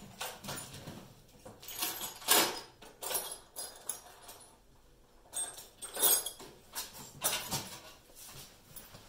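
Rummaging through metal tools and parts on a workbench while hunting for a pick: irregular rattles and scrapes in several short bursts, loudest about two and a half seconds in and again around six seconds.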